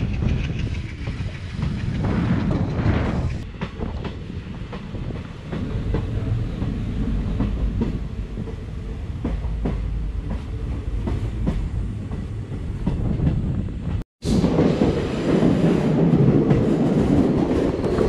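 A passenger train running along the track, heard from an open coach doorway: a steady rumble with the wheels clicking over rail joints. After a brief break about two-thirds of the way through, the rumble turns louder and denser as the train runs into a tunnel.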